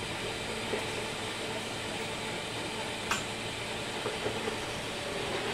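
Meitetsu 5000 series electric train, built on 1000 series running gear, heard from inside the carriage while running: a steady rumble and hiss with a faint hum and a few light clicks, one sharper about three seconds in.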